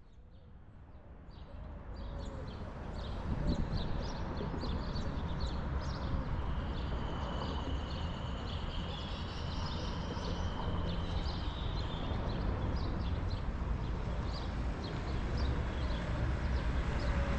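Quiet residential street ambience: a low, steady rumble of distant traffic and wind, with scattered birds chirping. It fades in over the first few seconds.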